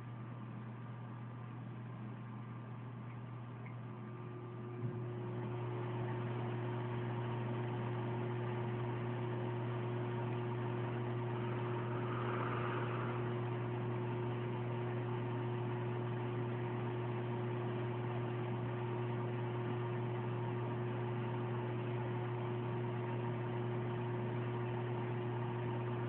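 Humidifier running with a steady hum. A click comes about five seconds in, and after it the hum grows louder, with a steady higher tone added.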